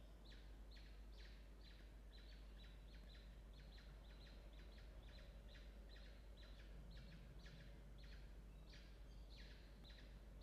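Peregrine falcon chicks peeping: a faint, even string of short high calls, about three a second, over a low steady hum.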